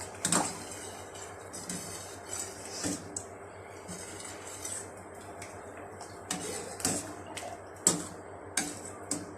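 Pots and metal utensils clinking and knocking in a kitchen: a string of separate sharp knocks, some briefly ringing.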